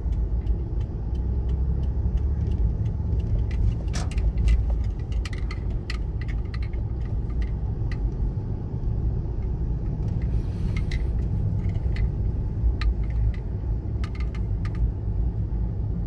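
Cabin noise of a car driving slowly: a steady low rumble of engine and road, with scattered light clicks and rattles.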